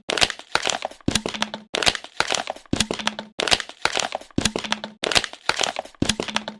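Plastic bottle being squeezed and crumpled, crackling and crinkling in quick repeated bursts, about two a second.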